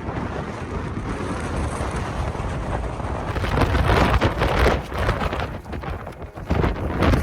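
Strong wind buffeting the microphone: a low rumbling rush that swells into louder gusts from about halfway through and again near the end.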